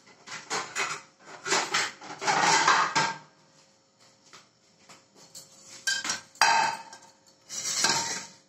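Crockery and cutlery clattering and clinking on a kitchen counter in uneven bouts of short knocks, with a quiet spell around the middle, as plates are picked up and set out.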